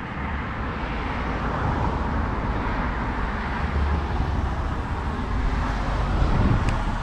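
Road traffic: a car going by, a steady rush of tyre noise that swells over the first few seconds and then eases, over a low rumble of wind on the microphone.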